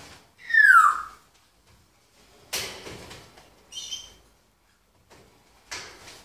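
Timneh grey parrot giving one loud whistle that falls in pitch, about half a second in, followed by three short, harsh, noisy calls spread over the next few seconds.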